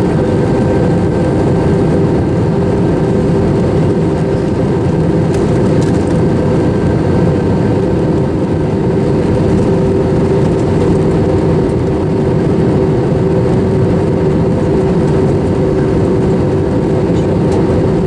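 Steady jet engine and airflow noise inside the cabin of an Airbus A321 on its descent, with a low hum running through it.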